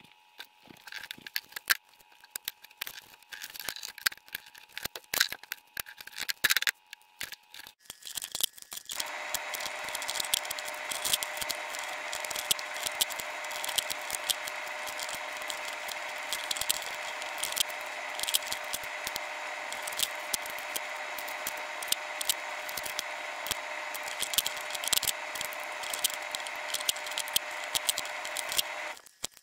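Small clicks and rattles of hand-stitching a leather belt: a needle, thread and steel pliers handled and pulled through the leather, with a metal buckle on a wooden board. About nine seconds in, a steady whirring noise with a few held tones comes in and runs until it cuts off shortly before the end.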